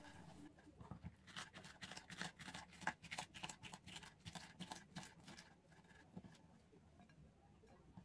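Kitchen knife slicing a green bell pepper into strips on a wooden cutting board: a faint, quick run of cuts tapping the board, about three or four a second, that stops about five and a half seconds in.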